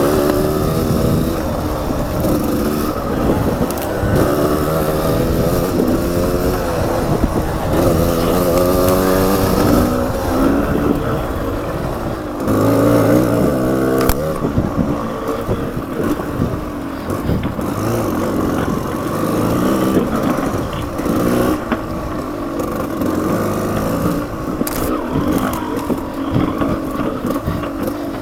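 Off-road motorcycle engine running hard on a trail, its pitch climbing and dropping again and again as it revs and shifts, with rattling from the rough ground.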